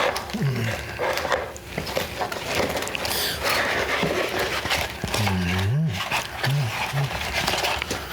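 A man's low wordless grunts and 'mmm' noises: a short one about half a second in, then a longer swooping one and a couple of brief ones around five to seven seconds in, over a steady noisy background.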